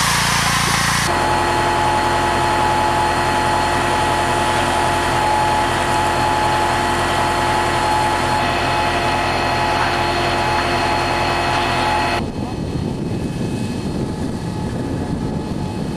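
A hand-held pressurised spray hissing for about a second. Then a steady engine drone with several constant tones for about eleven seconds, and a lower, rough noise near the end.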